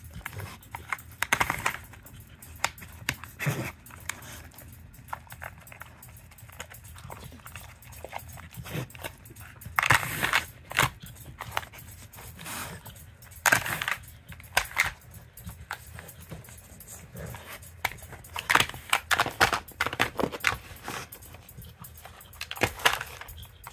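A dog working a plastic treat-puzzle toy with its nose: irregular clacks and knocks of the plastic lids being pushed and shifted, with sniffing and snuffling between them.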